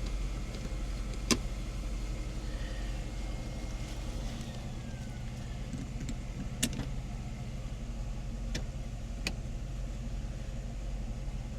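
Mercedes E420's 4.2-litre V8 idling steadily with a freshly replaced alternator, charging normally. A few short sharp clicks sound over the idle.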